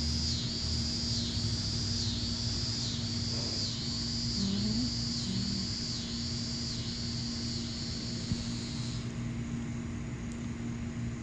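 Outdoor background of a steady low hum and rumble, with a high insect buzz pulsing about once a second that stops about nine seconds in.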